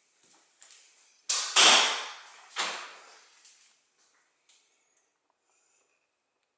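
A hinged interior closet door being handled: three sharp knocks and bangs within about a second and a half, the second the loudest, each dying away quickly.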